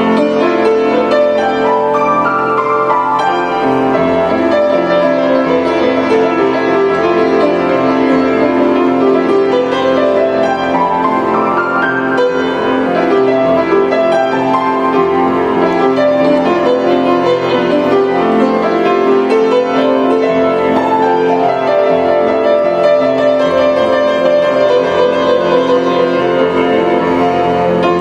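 Grand piano played with both hands: a continuous flow of sustained notes and chords at an even loudness.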